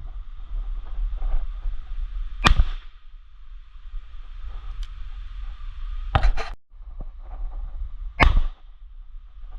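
Shotgun shots: three sharp bangs, about two and a half, six and eight seconds in, each with a short echoing tail, over a steady low rumble.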